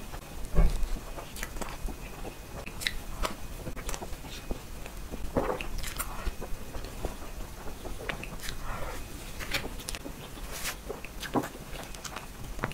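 Close-up eating sounds: wet mouth smacks, lip clicks and soft chewing of spoonfuls of matcha cream cake, with a low thump about half a second in.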